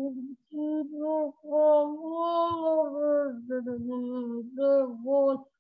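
A child's voice singing a tune in short phrases, with no clear words.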